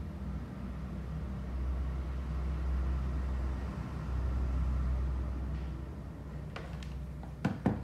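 A steady low rumble with a faint hum over it, and a few sharp clicks near the end.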